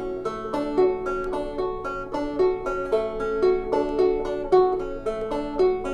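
Banjo picked in a steady stream of quick plucked notes, about five a second.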